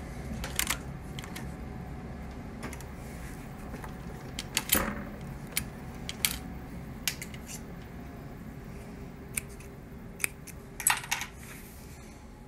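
Scattered sharp metallic clicks and taps from a Singer 153W103 cylinder-arm leather sewing machine as a thick stack of stitched leather is worked out from under its presser foot and the thread drawn out, over a low steady hum. A quick cluster of clicks comes near the end.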